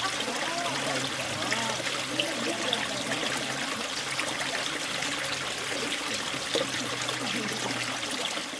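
Small stream trickling steadily.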